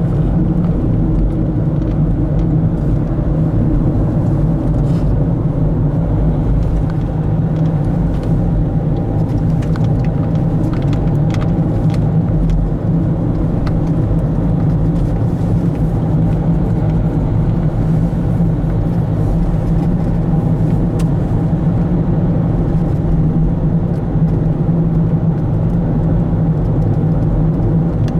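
A car driving at a steady pace: an even low rumble of engine and road noise.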